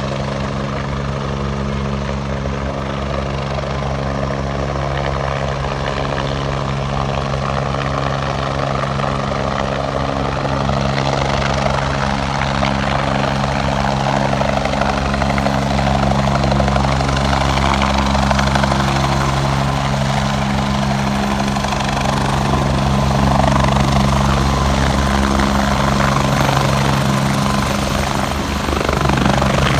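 Helicopter running close by: a steady rotor beat with a turbine hum, growing a little louder over the first half, with a brief shift in pitch near the end.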